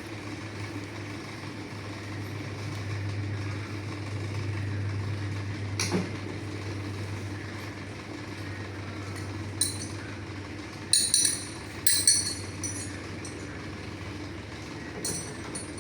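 Steady low machinery hum, with a single knock about six seconds in and a quick run of bright metal clinks near the end.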